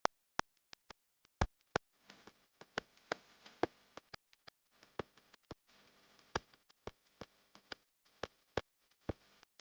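No Frost refrigerator giving off sharp, irregular clicks and cracks, a few a second. A faint hiss and hum runs under them from about two seconds in until near the end.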